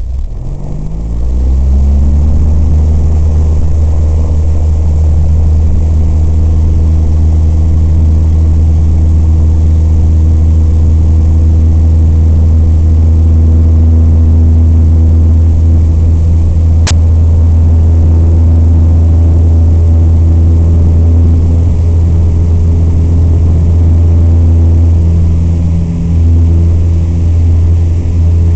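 Piper PA-28 light aircraft's piston engine and propeller spooling up to full power for take-off, then running steady and loud. A single brief click partway through.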